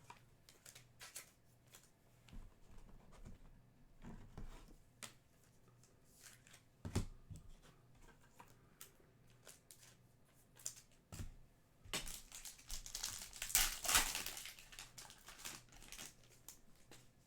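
Trading card packs and cards being handled: a foil pack wrapper crinkling and tearing, with light clicks and rustles of cards being flicked through. The loudest crinkling comes about twelve to fifteen seconds in.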